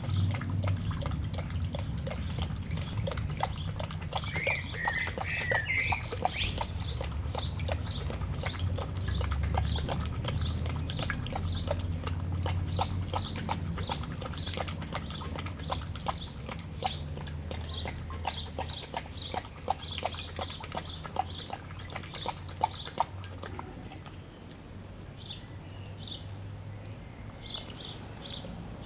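Great Dane lapping water from a bowl in a quick, even rhythm of wet laps, which stops a few seconds before the end. A bird calls briefly about five seconds in.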